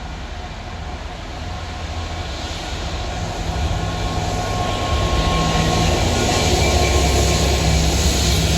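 Class 66 diesel locomotive approaching on a railhead pressure-washing train, its EMD two-stroke V12 engine humming ever louder. A hiss builds up alongside it.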